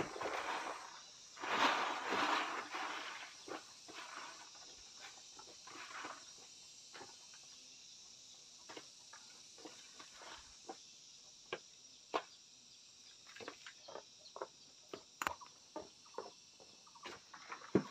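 Scattered light knocks and clicks at irregular intervals, with a brief scraping or rustling sound about a second in, over a steady high-pitched insect hum.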